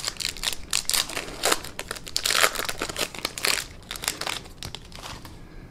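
Foil wrapper of a baseball card pack crinkling as it is torn open by hand: a rapid run of sharp crackles that thins out near the end.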